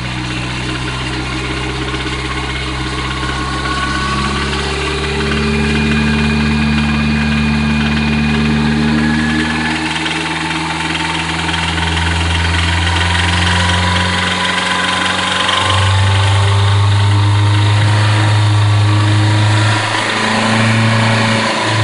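Nissan SR20DET red-top turbocharged four-cylinder engine running, held at a few steady speeds that step up in turn, with a tapping noise that stays about the same as the revs rise. The owner can't tell whether the tap is a valve or lifter tick or a rod knock.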